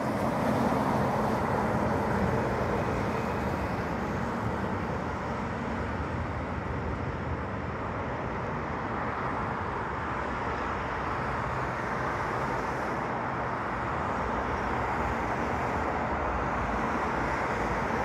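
Road traffic: a steady wash of car tyre and engine noise, a little louder in the first couple of seconds and swelling again near the end.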